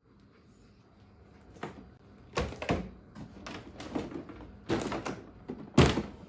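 Handling noises of a toy RC crane being unboxed: an irregular series of knocks, scrapes and rattles from the box and plastic parts, with the loudest thump near the end.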